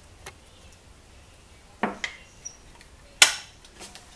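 A few sharp clicks and knocks of small hardware being handled on a miniSpinner electric spinning wheel as its brake band is put on. There is a loud knock and click just under two seconds in, and the loudest, a sharp clack with a brief ring, a little after three seconds.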